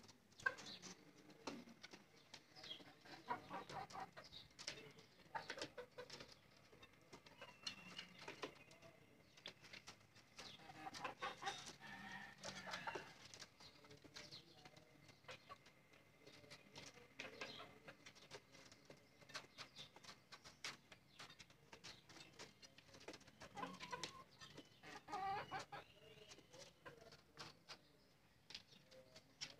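Desi (native South Asian) chickens clucking softly and intermittently in their wooden coop, among many faint scattered clicks and scratches.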